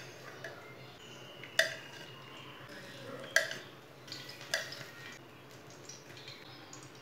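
Metal kitchen tongs clinking against a ceramic plate as fried eggplant slices are set down on it: a few separate sharp clinks a second or two apart.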